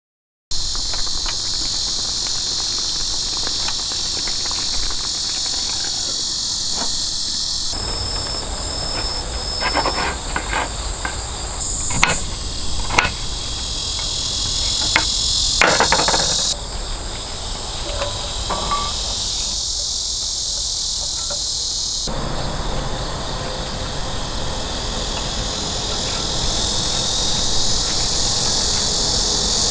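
Dense chorus of insects, a steady high-pitched shrill that shifts abruptly in pitch several times, with a handful of sharp knocks around the middle.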